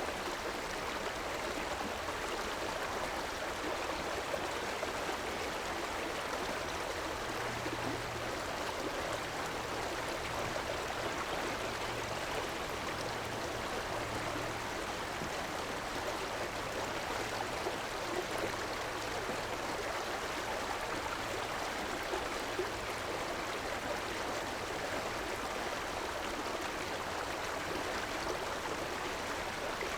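Steady rush of river water flowing over stones, an even, unbroken sound. A faint low hum joins in for a stretch in the middle.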